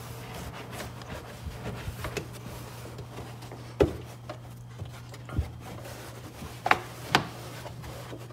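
Carpeted trunk trim panels being pushed and tucked back into place by hand: rubbing and scuffing of the fabric-covered panels, with a few sharp clicks or knocks, one about four seconds in and two near the seven-second mark. A steady low hum runs underneath.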